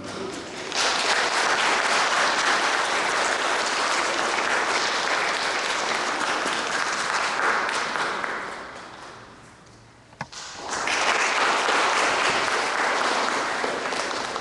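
Audience applauding in two rounds. The first starts about a second in and dies away around nine seconds, a single sharp knock follows near ten seconds, and a second round of clapping starts just after.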